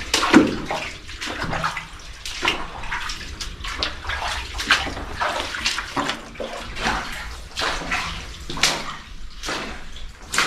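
Footsteps wading through shallow water in a tunnel, splashing at a steady walking pace of about two steps a second.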